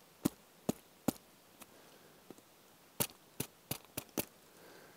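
Knife point jabbing into a plastic water bottle's cap to pierce a hole: sharp clicks, three in the first second or so and a quicker run of five near the end.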